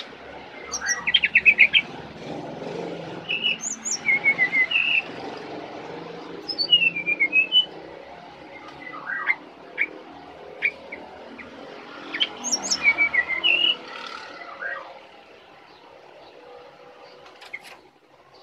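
Brown-chested jungle flycatcher singing: four short phrases of quick, up-and-down whistled notes and rapid trills, a few seconds apart, with a few single sharp notes between them. A faint low hum lies underneath until near the end.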